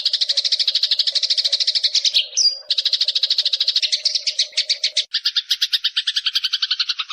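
Eurasian tree sparrow giving a long, rapid chattering trill of even notes, about a dozen a second, with a short rising note breaking it about two and a half seconds in. The chatter shifts to a lower, fuller tone about five seconds in and stops abruptly at the end.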